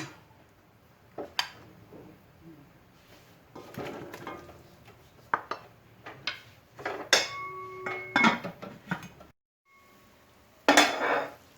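Kitchen utensils and cookware knocking and clinking, a series of short irregular knocks with a brief metallic ring about seven seconds in. A louder burst of clatter comes near the end.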